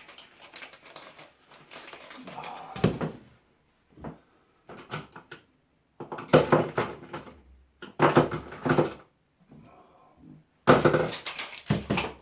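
Irregular clicking, knocking and scraping as a screwdriver works at a fan's plastic and metal parts and the parts are handled, in uneven bursts with short pauses between.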